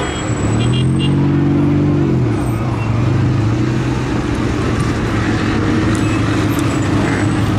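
Road traffic: car engines running in a slow queue of cars, a steady low engine drone over general traffic noise.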